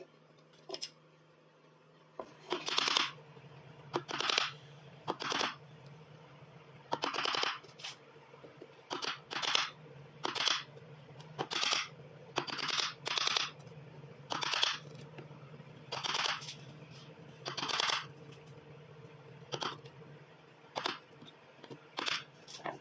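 Chisel edge drawn and pressed along a marked line across a wooden plane body, scoring the wood. It makes a series of short scraping strokes, about one a second, starting about two seconds in.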